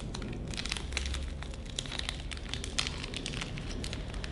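Small plastic parts bag crinkling in the hands: a continuous run of quick, crisp crackles.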